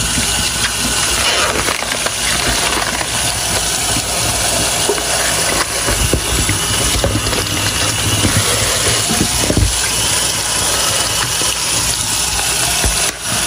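Kitchen tap running a steady stream of water into a stainless steel sink, with plastic wrap and a foam meat tray being handled under the stream as raw chicken is unwrapped and rinsed.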